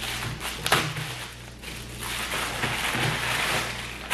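Plastic packaging rustling and crinkling as parts are handled, with a sharp click about three-quarters of a second in.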